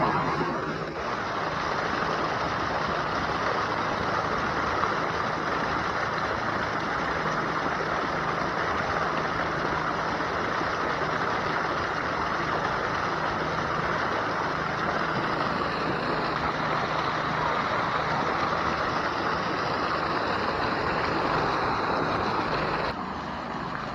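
Heavy jet of water from a water truck's hose pouring and splashing into an above-ground pool, a steady rushing sound, with the truck's engine running steadily underneath. The splashing drops a little about a second before the end.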